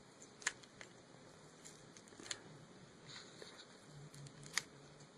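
A few faint, sharp clicks and light handling noise from small hand work on a laptop's screen cable connector and its holding tape, the loudest click about four and a half seconds in.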